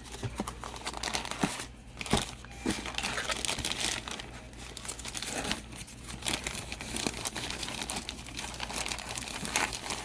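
Packaging crinkling and rustling as a new camcorder is unwrapped by hand, with a few sharp clicks and knocks mixed in.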